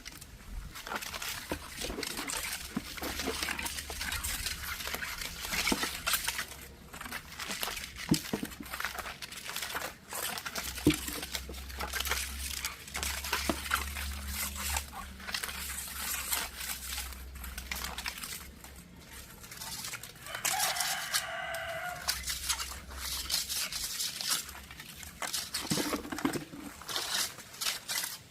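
A rooster crows once, a single call lasting a second and a half or so, about two-thirds of the way through. Underneath, there are continual scraping, rustling and tapping noises.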